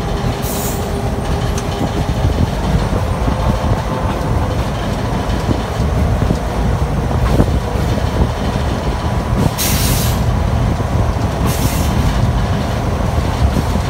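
Diesel locomotive running along the track, heard from its open front platform: a steady low rumble of engine and wheels on rail, with three short bursts of hiss, one just after the start and two near the end.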